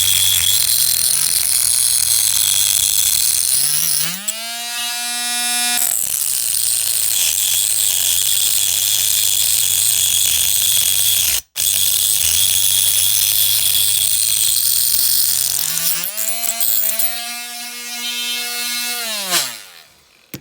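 Small handheld electric power tool working the metal of a diecast toy car, a steady grinding buzz under load. Twice the load comes off and the motor rises to a clear, higher whine before bearing down again, and near the end it spins down to a stop.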